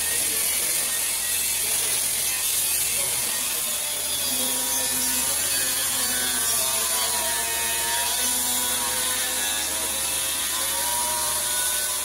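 Workshop grinding machines running, with steel being ground on a belt grinder and a grinding wheel. A motor whine comes in about four seconds in and sags and recovers several times as the machine is loaded.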